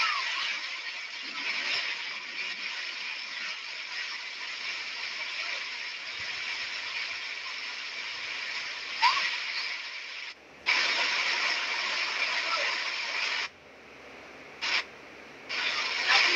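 Heavy rain falling in a steady hiss, which cuts out suddenly for a moment just before 11 s and again for most of the last three seconds. A short high rising squeal sounds near the start and again at about 9 s.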